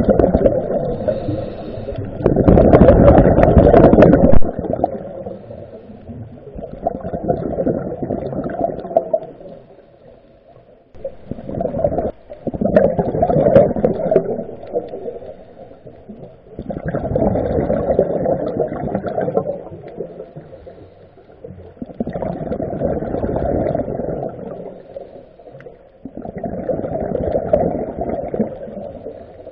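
Underwater breathing of a scuba diver through a regulator: a rushing, bubbling surge comes about every five seconds, with quieter gaps between breaths.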